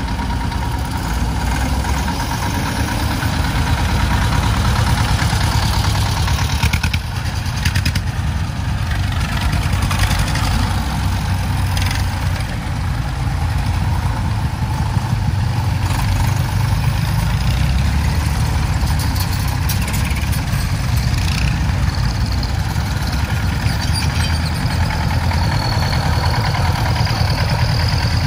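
Vintage tractor engine running steadily with a low, pulsing rumble and a few light clicks.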